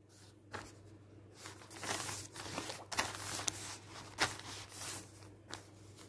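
Handling noise: irregular rustles and light knocks, strongest in the middle seconds, over a low steady hum.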